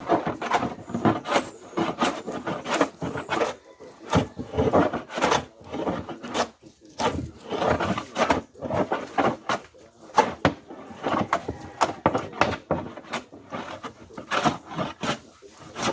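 Vintage wood plane being pushed along a board, shaving the wood in a run of short, irregular strokes, a few a second.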